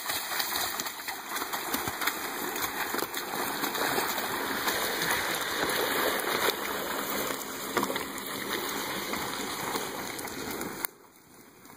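A log dragged by a horse team, scraping and crackling over dirt and woody debris in a steady rush of noise that drops away abruptly near the end.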